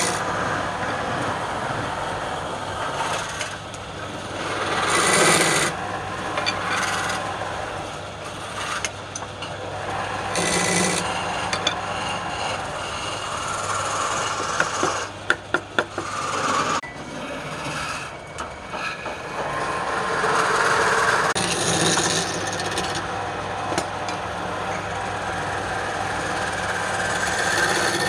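A wood lathe running with a low steady hum while a turning tool scrapes against the spinning wood in uneven swells. A few sharp clicks come about fifteen seconds in.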